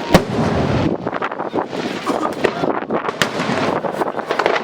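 Fireworks going off: sharp bangs just after the start, about three seconds in and near the end, with dense crackling between them.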